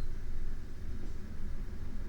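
A sleeping person's breathing close to a binaural microphone, heard mainly as a low, steady rumbling noise.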